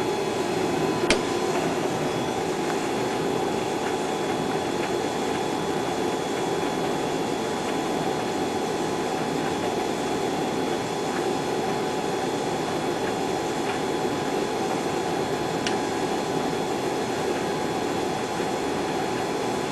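Hotpoint Aquarius VTD00 tumble dryer running a load of towels: the steady whir of its motor and fan with the drum turning, and a faint click about a second in.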